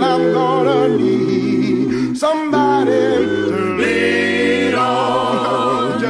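A cappella group singing: several voices in close harmony, holding chords that change about once a second.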